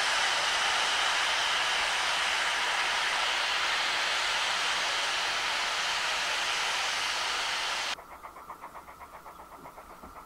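Steam locomotive standing and letting off steam in a loud, steady hiss that cuts off suddenly about eight seconds in. A distant steam locomotive working a train follows, its exhaust beats in a quick, even rhythm.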